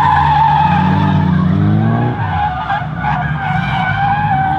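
A small kei car engine revving, its pitch climbing over the first two seconds and then fading, under a steady wavering high squeal from sliding tyres.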